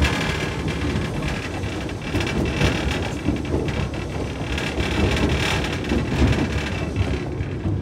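Open carriages of a narrow-gauge steam train running along the track: a steady rumble and clatter of wheels on rails.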